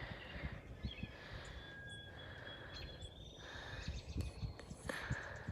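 Quiet outdoor ambience with small birds calling and chirping in thin high whistles, over faint low knocks.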